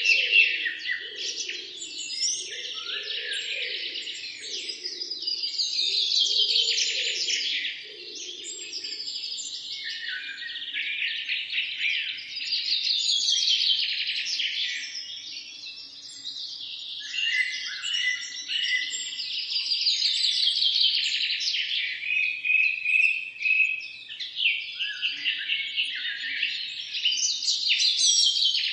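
Several songbirds chirping and singing together, with a falling trilled phrase repeating every few seconds. A fainter, lower warbling sound runs underneath for about the first nine seconds.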